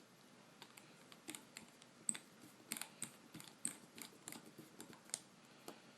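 A tiny precision screwdriver clicking and ticking against a small screw and the iPhone's metal frame as the screw is driven back in. The clicks come in a faint, irregular run.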